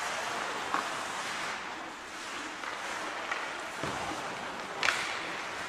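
Live ice hockey play heard in an ice rink: a steady scraping hiss of skates on the ice, with a few sharp clacks of stick and puck, the loudest just before the end.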